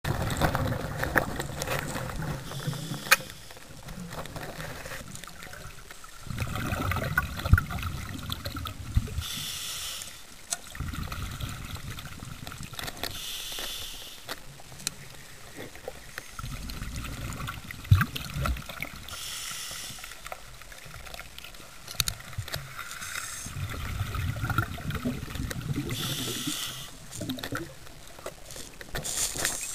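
Scuba diver breathing through a regulator underwater. Each inhalation gives a hiss, and it alternates with the low bubbling rumble of exhaled air, one slow breath every several seconds. A few sharp knocks stand out, about three seconds in and again near seven, eighteen and twenty-two seconds.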